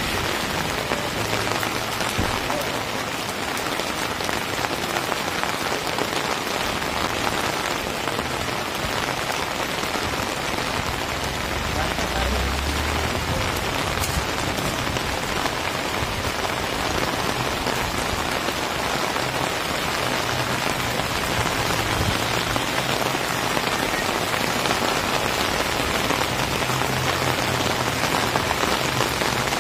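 Rain falling steadily on a wet paved street: a constant, even hiss of drops on the pavement and road.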